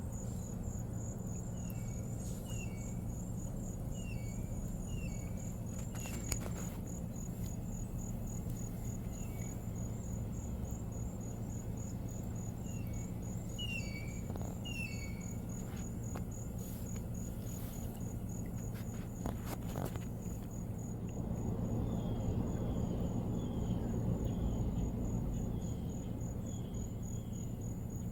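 A cricket trilling steadily in a fast, even high-pitched pulse, with a bird chirping in short groups of quick notes now and then. A steady low hum sits underneath and grows a little louder in the second half.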